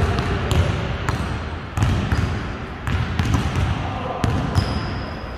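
Basketball bouncing and being dribbled on a gym court: a string of sharp, irregular knocks over the low hubbub of the game.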